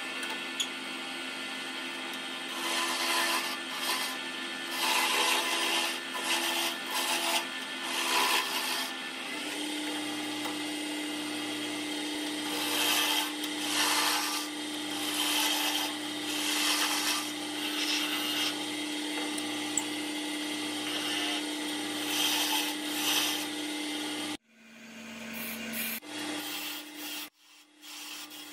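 Wood lathe running with a steady hum while a turning gouge cuts the spinning mahogany blank, giving uneven scraping, shaving noise that swells and fades with each pass. The hum steps up slightly in pitch about a third of the way in, and the sound drops away sharply for a moment near the end.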